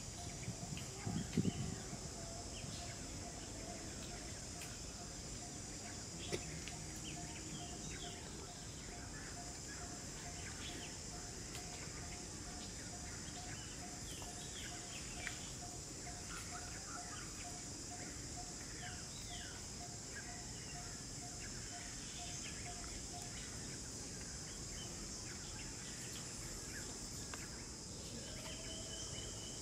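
Outdoor ambience: a steady high insect drone with scattered bird chirps, and a low note repeating about twice a second that stops a few seconds before the end. A few low thumps come about a second in.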